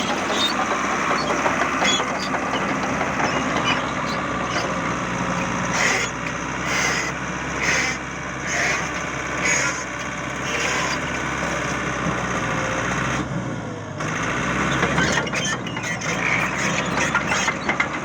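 Caterpillar D5K bulldozer's diesel engine running steadily, with rattling and clanking over it and a brief drop in level about thirteen seconds in.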